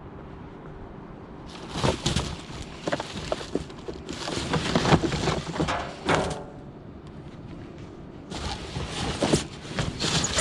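Rummaging through a container of discarded junk: rustling and clattering with sharp knocks, in one long bout from about a second and a half in, then another near the end.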